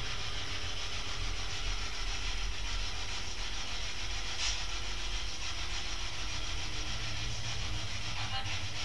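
Spirit box, a radio that rapidly sweeps through stations, giving a steady hiss of static with a low hum beneath and one brief faint blip about four and a half seconds in.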